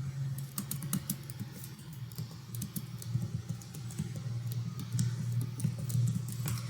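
Computer keyboard keys clicking in an irregular run as a password is typed, over a steady low hum.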